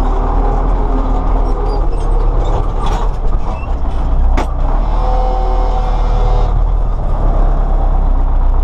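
MTZ-82 tractor's four-cylinder diesel engine running steadily, heard from inside the closed cab. A single sharp click comes about four seconds in.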